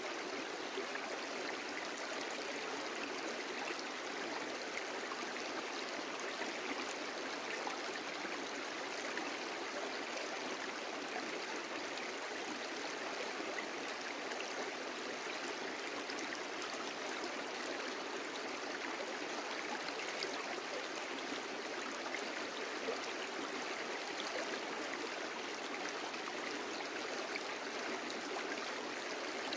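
A brook flowing steadily: an even, unbroken rush of running water with no pauses or changes.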